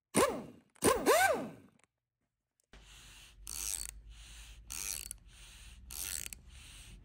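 A short logo sound effect: two sweeping tones that rise and fall, the loudest thing heard. After a pause comes a regular mechanical rasping stroke about every second and a bit, over a low hum.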